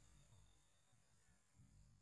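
Near silence: a faint low rumble and hiss.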